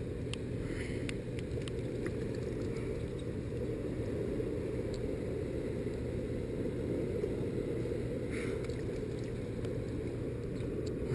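Steady low rumble of fast river water pouring out below a hydroelectric dam, heavily muffled, with a few faint ticks.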